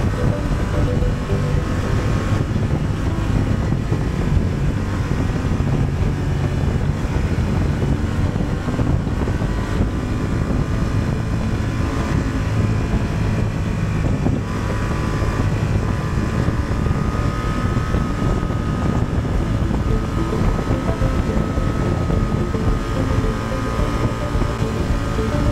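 Honda Transalp 750's parallel-twin engine running steadily under way, with wind buffeting the microphone.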